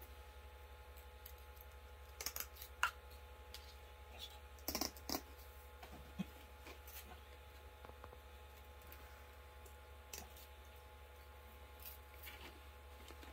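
Scissors snipping and handling stainless steel window-screen mesh: scattered small sharp clicks, some in quick clusters, over a faint steady hum.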